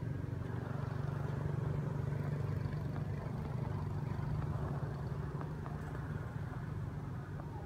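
A steady low engine hum, running evenly at an unchanging pitch.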